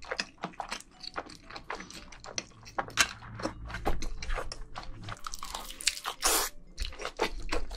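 Close-miked mouth sounds of a person eating black bean sauce noodles: wet chewing, lip smacks and quick clicks throughout, with a longer burst of sound just after six seconds as he bites into a block of canned ham.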